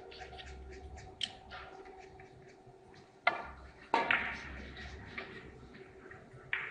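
Carom billiards shot: a sharp click of the cue tip striking the cue ball about three seconds in, then a louder clack about half a second later as the ball hits the far rail. Faint scattered ball clicks from neighbouring tables and a steady hum run underneath.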